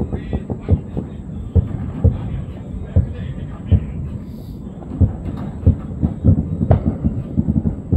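Fireworks banging and popping at a distance, irregular sharp thumps that come more thickly in the second half, with faint voices in the background.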